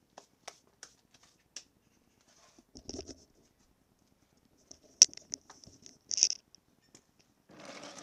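Handling noise: a scattering of small clicks, a scrape about three seconds in, a sharp click at about five seconds and a short rustle near the end as the camera is picked up and moved.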